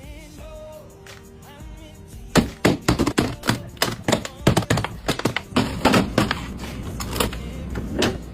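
Plastic food-storage containers being handled and set down, giving many sharp irregular clicks and knocks that start a couple of seconds in, over quiet background music.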